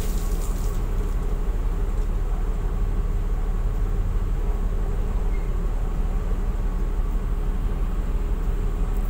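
Steady low rumble of a container ship underway in rough seas, heard from behind the bridge windows, with a brief higher hiss near the start.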